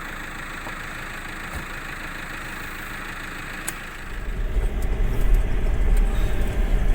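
Vehicle engine running steadily, then about four seconds in a much louder, uneven low rumble sets in and continues.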